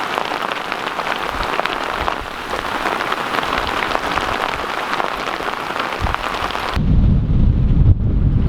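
Heavy rain falling on a hard surface, a dense hiss full of separate drop hits. About seven seconds in it cuts abruptly to wind rumbling on the microphone.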